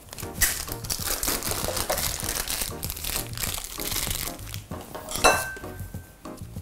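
Plastic piping bag crinkling and rustling as it is twisted and squeezed around a load of cake batter. A single sharper knock comes about five seconds in.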